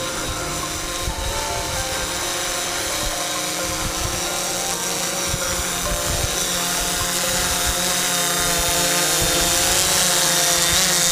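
DJI Phantom quadcopter's propellers whirring: a buzz of several steady tones that waver slightly as the motors adjust, growing louder as the drone comes in low to land. Wind noise rumbles on the microphone underneath.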